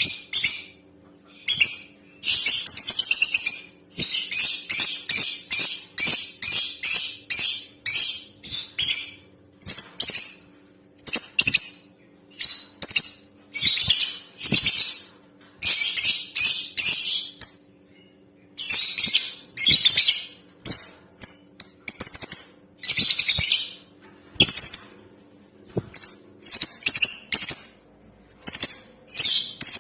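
Female lovebird calling: rapid, high-pitched chirps in chattering runs of a second or two, broken by short pauses.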